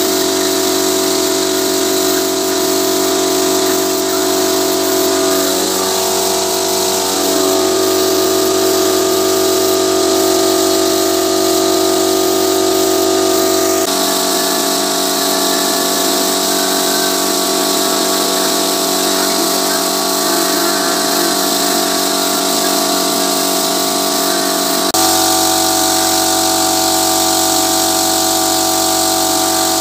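Air-fed paint spray gun hissing steadily as it sprays, over the steady hum of the air compressor that drives it. The hum's pitch shifts abruptly twice.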